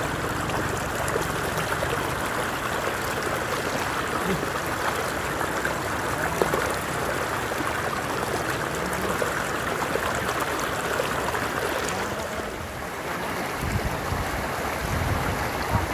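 Shallow floodwater streaming and rippling close to the microphone, a steady rush of running water.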